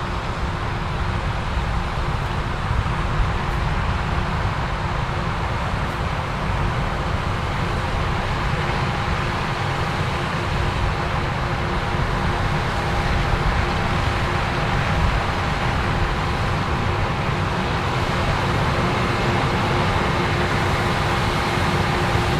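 Case IH AF10 combine's 15.9-litre engine and threshing machinery running steadily while harvesting corn with a 16-row corn head: a dense low rumble with steady whining tones, growing slowly louder.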